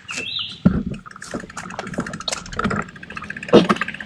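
A child's bicycle getting going on the trail, its tyres still caked with mud: a low rumble with a quick, irregular run of clicks and ticks from the tyres and drivetrain.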